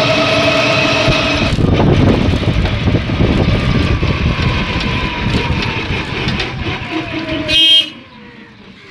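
Riding in an auto-rickshaw: a steady motor whine gives way to the rumble and rattle of the body over the road, while the whine slowly falls in pitch as it slows. A short horn blast, the loudest sound, comes near the end.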